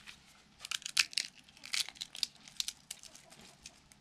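Dry tamarind pods being shelled by hand: the brittle shells crack and crackle in a run of sharp snaps, thinning out near the end.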